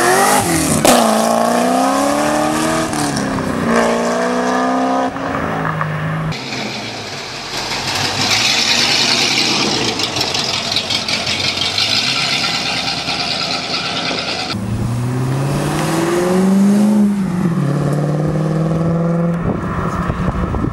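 Chevrolet Corvette V8 engines accelerating away, twice, their pitch rising through the gears with shifts between. In the middle stretch the engine note gives way to a steady hissing rush.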